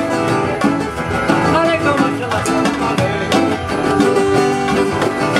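Live acoustic guitar strummed in a steady rhythm, an instrumental stretch of a song.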